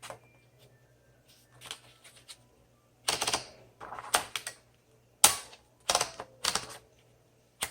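1954 Smith Corona Skyriter portable typewriter being typed on: a few faint taps, then, about three seconds in, louder irregular clusters of sharp type-bar strikes.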